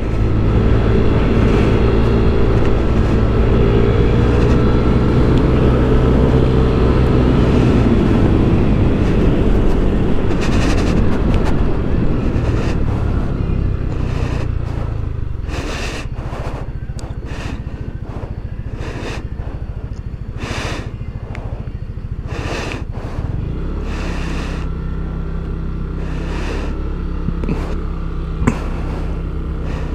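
Yamaha Aerox scooter's single-cylinder engine running under way. It is strong for the first dozen seconds, eases off and quietens about halfway through, then picks up a steady hum again near the end.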